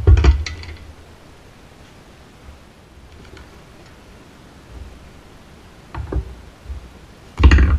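Knocks and clunks of a cast-aluminum drill press belt guard and a ball-peen hammer being handled on a wooden workbench. There is a loud thump at the start, a couple of smaller knocks about six seconds in, and another loud thump near the end.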